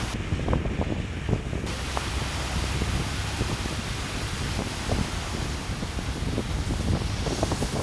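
Wind buffeting the microphone over a steady rushing noise, with a few faint scattered ticks.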